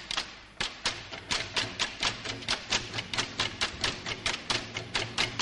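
Railway carriage wheels clattering over rail joints: quick, regular clicking over a low steady rumble.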